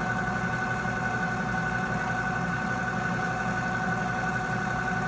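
U.S. Saws one-man polyurea joint-fill pump running steadily, a constant hum with a whine, as it pumps the last of the material out of its nearly empty tank before a xylene flush.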